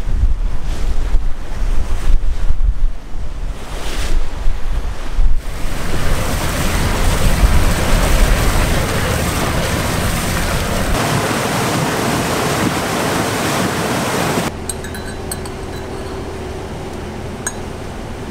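Wind buffeting the microphone, then river water rushing and spraying along the hull of a moving boat. About fifteen seconds in the rush gives way to a quieter steady hum with a few light clinks of a spoon against a coffee cup.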